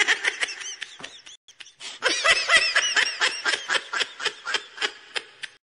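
Laughter in two runs of quick, high, pitched pulses. A short run is followed by a brief gap, then a longer run that tapers off into separate bursts and stops abruptly.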